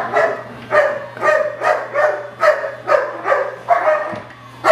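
A dog barking over and over, about two barks a second.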